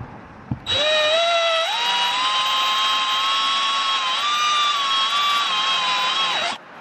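Power drill with a 3/8-inch bit boring through a kayak's polyethylene hull: a steady motor whine that starts about a second in, steps up in pitch shortly after, and cuts off just before the end.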